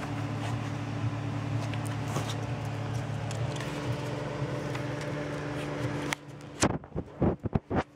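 A steady machine hum with faint scattered clicks. About six seconds in it drops away sharply, and a quick string of five or six loud short sounds follows.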